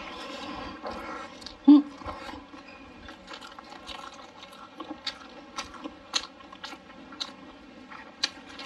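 Close-miked mouth sounds of a person chewing a bite of stuffed flatbread: soft wet smacks and clicks every half second or so. A short, louder hum comes from the eater about two seconds in.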